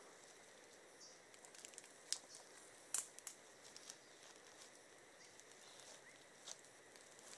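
Near silence, broken by a few faint, sharp crackles of dry leaf litter, the sharpest about two and three seconds in.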